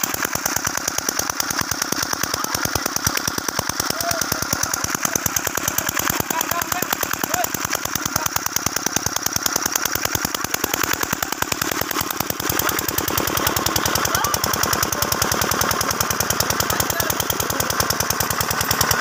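Engine-driven water pump running with a rapid, steady chugging, pumping water out of a ditch; it gets a little louder about two-thirds of the way in.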